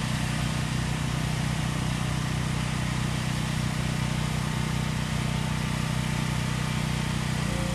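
An engine idling steadily with an even, unchanging drone.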